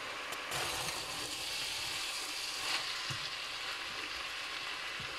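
Chopped mixed vegetables sizzling steadily in oil in a stainless steel pot as they are stirred with a metal slotted spoon, with a few light knocks of the spoon against the pot. The vegetables are about half-cooked.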